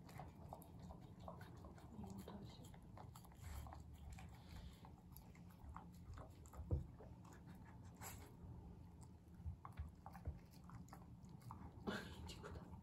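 Beagle eating from a plate: faint chewing with irregular small clicks, and one louder click about halfway through.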